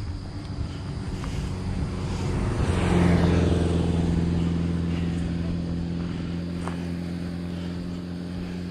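Engine of a passing motor vehicle: it swells to its loudest about three seconds in, then settles into a steady low engine drone that slowly fades.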